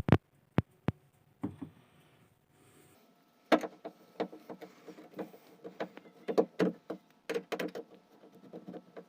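Irregular knocks and clatters: a few sharp single knocks at first, then from about three and a half seconds in a dense run of knocking and rattling.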